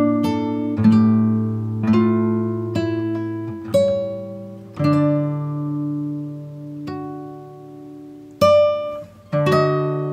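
Background music of plucked acoustic guitar: slow picked notes and chords that ring and fade, with one chord left to ring out for about three seconds midway before the picking resumes.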